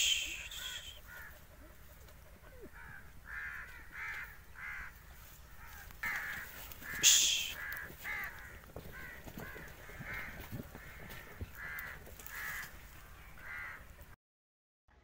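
An animal calling in short repeated calls, about two a second, with two louder sharp noises, one at the start and one about seven seconds in. The sound drops out completely near the end.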